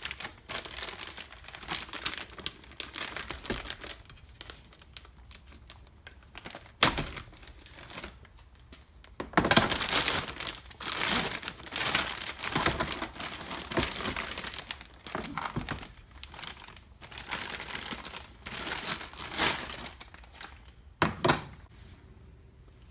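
Clear plastic wrapping crinkling and rustling as it is worked off a new cordless grease gun by hand, busiest in the middle stretch. A couple of sharp knocks come about seven seconds in and again near the end.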